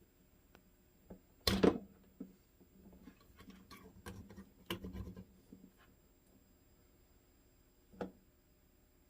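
Handling noise from a multimeter and its test probes on a workbench: a loud knock about a second and a half in, a run of small clicks and taps, and one more knock near the end.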